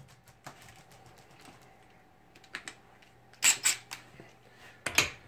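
Hard tools being handled: a few sharp clicks and clacks as the cordless impact wrenches and socket are swapped over, loudest in a quick cluster about three and a half seconds in and again near the end.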